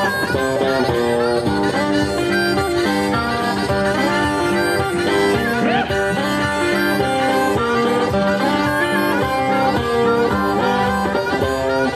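Blues harmonica played through a vocal microphone, held in cupped hands for an amplified sound, over electric guitar accompaniment. Long held notes run without a break.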